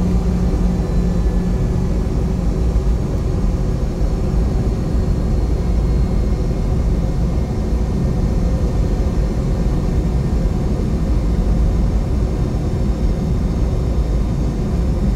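Boeing 717's Rolls-Royce BR715 turbofan engines heard from inside the cabin, running steadily at low power while the jet rolls on the ground, with a deep rumble under faint steady high tones. A low hum fades out about a second and a half in.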